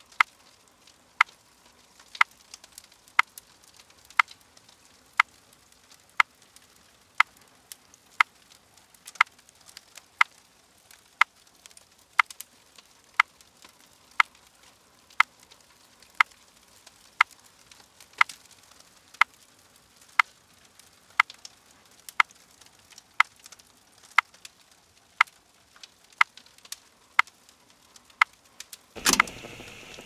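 Steady ticking, one sharp tick about every second, like a clock or timer counting down, with fainter irregular crackles between the ticks. Near the end a louder burst of sound breaks in.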